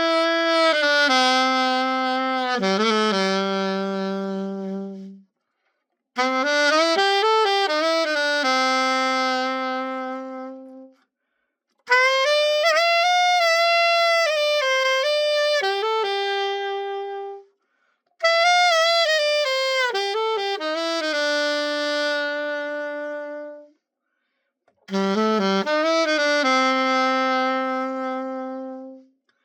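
Yamaha YAS-61 alto saxophone played in five short phrases of a few notes each. Each phrase ends on a held note and is cut off into a brief silence, as a play test after a full overhaul.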